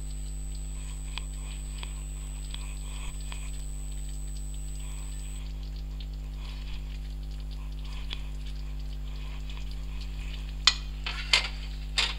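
Creamy chicken curry sizzling softly in an iron karahi, faint crackles over a steady low hum. Near the end come three sharp knocks, the loudest sounds, as something hard strikes against the pan.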